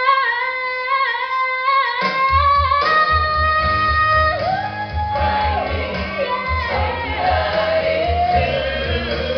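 Live rock show music in a theatre: voices hold long sung notes unaccompanied, then about two seconds in the band comes in with a pulsing bass beat under the continuing singing.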